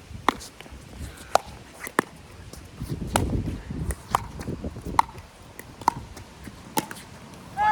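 Pickleball rally: sharp pocks of paddles striking a hollow plastic ball and the ball bouncing on the court, about one every second, with a low wind rumble on the microphone swelling about three seconds in.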